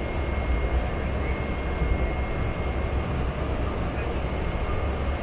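Steady drone of a Cessna Caravan's PT6A turboprop engine and propeller heard inside the cockpit, deep and even, with a thin high whine over it, as the aircraft rolls on the runway.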